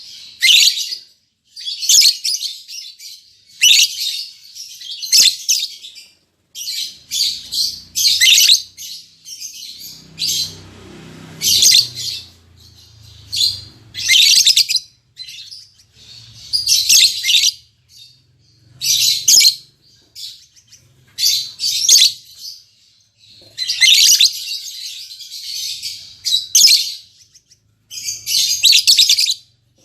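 Lovebirds chirping in short high-pitched bursts, repeated every second or two, with a longer run of chirps a little before the end.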